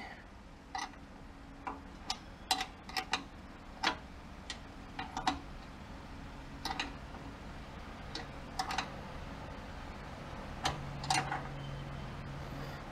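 Sharp metallic clicks from a 13 mm wrench working the nuts that bolt a cargo shelf to its steel brackets, spaced unevenly, some in quick pairs.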